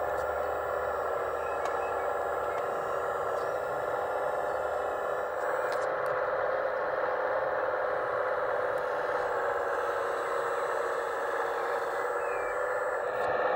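Hydraulic pump of a radio-controlled model excavator running steadily, an even sound without a clear pitch, as the arm works a load hung on chains.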